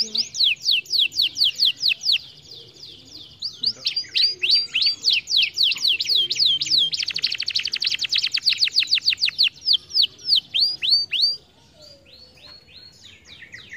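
Canary singing: runs of quick falling whistled notes, several a second, breaking into a very fast trill about halfway through. A few slower notes follow, then the song drops away to faint twittering near the end.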